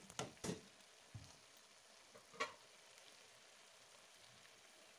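Slotted spoon scraping and knocking against a cooking pot while rice is spread over the biryani: a quick run of strokes at the start, then single knocks about a second and two and a half seconds in. After that only a faint steady hiss.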